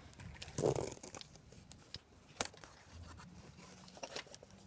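Handling noise as a camera is pushed between window-blind slats: irregular rustles and sharp clicks, with a louder rustle about a second in and a single sharp click in the middle, over a faint even hiss.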